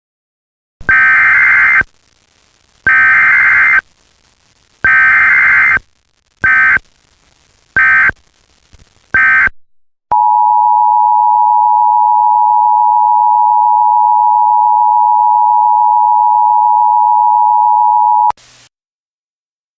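Emergency Alert System signalling. First come three loud, roughly one-second SAME digital header bursts, then three short end-of-message bursts. After them the steady two-tone EAS attention signal holds for about eight seconds and then cuts off abruptly.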